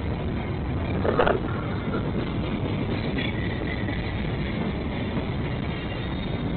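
Train rolling past with a steady low rumble, with a short, louder noise about a second in.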